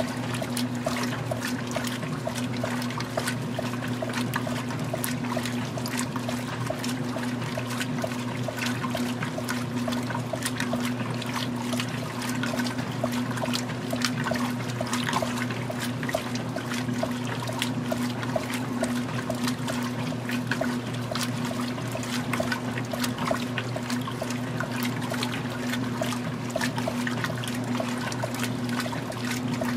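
Magic Chef 20-pound top-load washing machine agitating during the wash: the agitator sloshes and churns water and clothes in steady rhythmic strokes over a constant motor hum.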